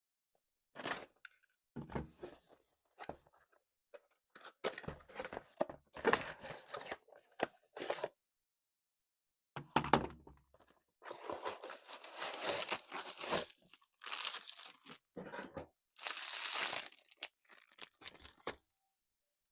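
Toy packaging being torn and crinkled by hand: a string of short rustles and knocks, with a sharp knock about halfway and longer tearing rustles after it.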